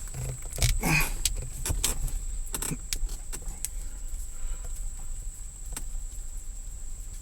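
Light metallic clicks and rattles from hands working at the gear shifter and its parts, thick in the first three seconds and then sparse, over a faint steady high-pitched whine.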